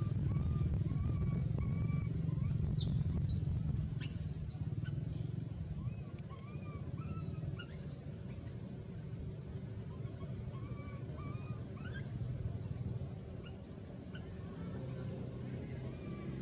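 Monkey squeals: a few short, sharp rising cries, about three seconds in, near eight seconds and near twelve seconds, over a run of short repeated chirps and a steady low rumble.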